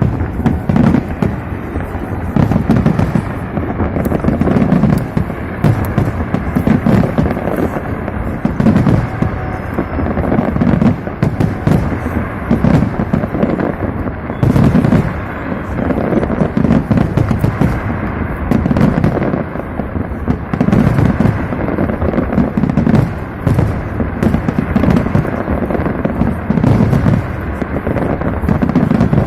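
Fireworks display: a continuous barrage of deep booms from bursting shells, about one a second, with sharp cracks in between.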